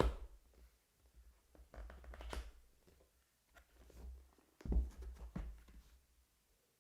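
Hands handling a keyboard's cardboard box and packaging: a bump at the start, a rustle about two seconds in, and a couple of thuds near the end.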